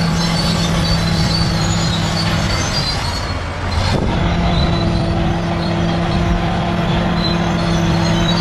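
A bulldozer's diesel engine runs steadily under load while its steel tracks squeal at intervals. About three seconds in, the engine note dips briefly, then picks back up.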